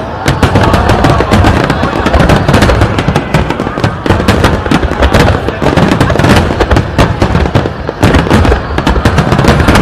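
Fireworks display in a dense, continuous barrage: rapid bangs and crackles many times a second over a heavy low rumble, loud throughout.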